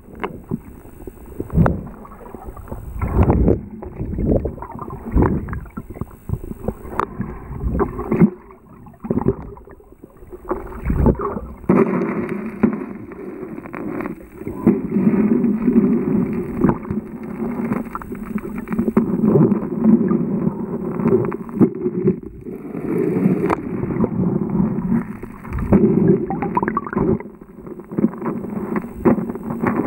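River water heard with the microphone underwater: a muffled, continuous rush and gurgle, with frequent dull knocks and thumps.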